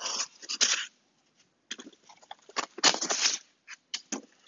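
Hands rustling and scraping through crumbly foam packing and plastic stretch wrap, in several short scratchy bursts; the loudest come near the start and about three seconds in.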